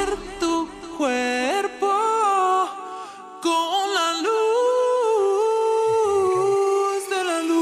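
Music: a solo voice singing a slow, wordless melody in long held notes that slide between pitches, with no beat behind it. The phrase breaks off briefly about three seconds in and then resumes.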